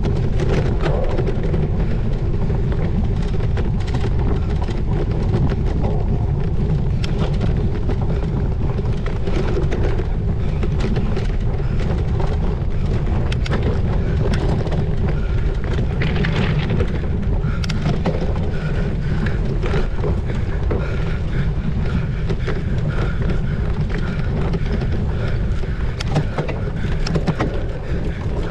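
Wind rushing over the microphone of a cyclocross bike rider's camera, with clicks and rattles from the bike being ridden over rough ground.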